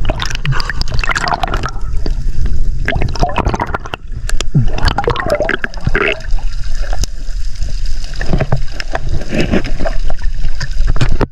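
Water gurgling and sloshing as heard by a camera held underwater, with a heavy low rumble and many small irregular clicks and knocks.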